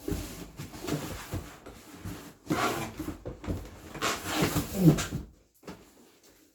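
Cardboard firework assortment boxes being handled and moved: scraping, rustling and a string of knocks for about five seconds, then it goes quiet.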